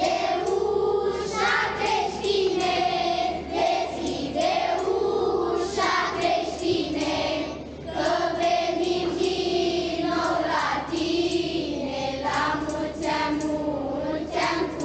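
A group of children singing a Romanian Christmas carol (colindă) together, in unison.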